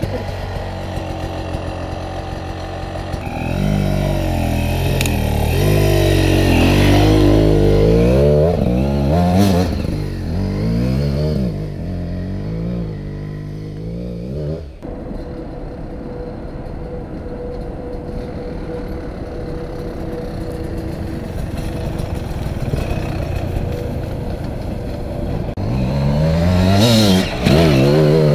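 GasGas EC 300 two-stroke enduro motorcycle engine revving hard in repeated rising and falling bursts as it climbs off-road. About halfway through the sound changes suddenly to a steadier, quieter engine note, and the revving picks up again near the end.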